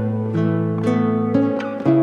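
Background music: plucked acoustic guitar playing a gentle melody, a new note or chord about every half second.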